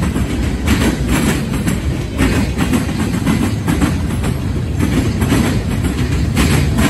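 Freight train cars rolling past: a steady low rumble of steel wheels on rail, broken by frequent irregular clacks as the wheels pass over rail joints.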